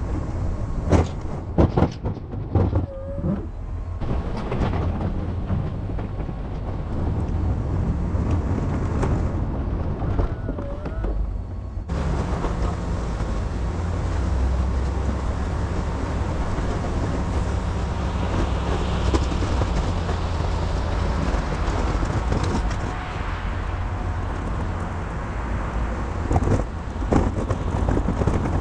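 2019 GMC Sierra 2500 pickup's engine running steadily while it pushes snow with a Snow Dogg plow. A few sharp knocks come in the first few seconds, and about twelve seconds in the sound shifts suddenly to a fuller, hissier noise.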